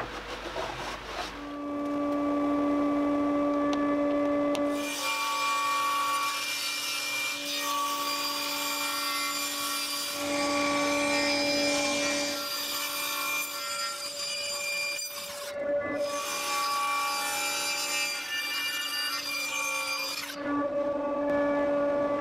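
Table saw running with a steady whine while crosscutting glued-up hardwood strips on a sled. The rasp of the blade through the wood comes and goes over several cuts.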